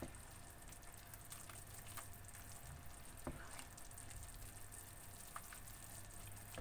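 Faint bubbling and sizzling of a thick carbonara cream sauce simmering in a nonstick pan as it cooks down to thicken, with a few light taps and scrapes of the spatula as it is stirred.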